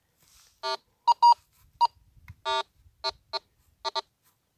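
Minelab Go-Find metal detector sounding target signals: a string of short, irregularly spaced beeps, mostly one low tone with a few higher-pitched beeps between about one and two seconds in.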